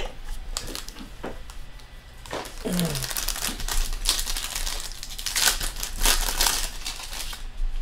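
Foil trading-card pack wrappers crinkling and tearing as they are pulled open by hand. The crackle comes in irregular bursts and is busiest in the second half.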